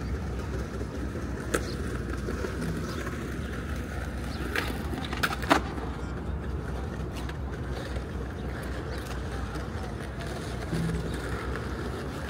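Outdoor city ambience: a steady low rumble with a few sharp clacks scattered through it, the loudest about five and a half seconds in.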